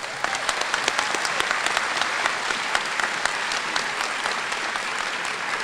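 Audience applause: many people clapping together, starting suddenly and holding steady.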